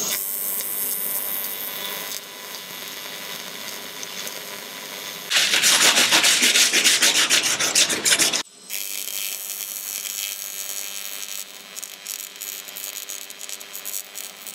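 TIG welding arc on an aluminium boat hull, a steady hiss with a faint buzz, as a crack is welded up with the welder set low. From about five to eight seconds in, a louder run of rapid scratching strokes against the metal breaks in and stops abruptly, then the arc's hiss resumes.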